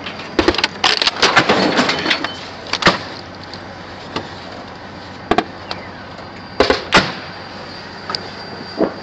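Gunfire: sharp reports at irregular intervals, a rapid cluster in the first two seconds, then single shots and pairs spaced roughly a second apart, over a steady background noise. The crew takes it for an armoured personnel carrier firing into the treeline.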